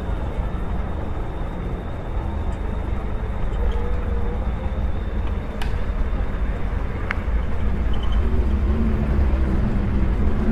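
Street and traffic noise recorded while riding an e-scooter, with heavy low rumble from wind on the microphone. A thin steady high whine runs through the first half, and two sharp clicks come about halfway through.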